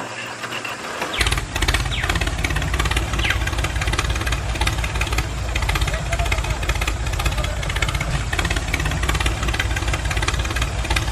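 A tractor engine starts about a second in and runs steadily with a low, fast, even beat.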